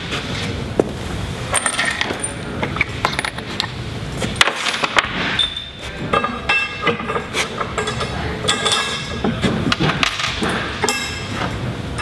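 Metal clinks, knocks and ringing as square boom tubes, an 8-inch boom connector and bolts are handled and slid together on a metal work table.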